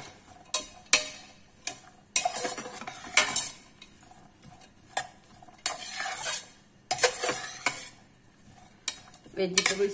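A spatula stirring and scraping chopped vegetables around a pressure cooker pan as they sauté in ghee, with a faint sizzle under it. Several sharp knocks of the spatula against the metal pot come at irregular moments.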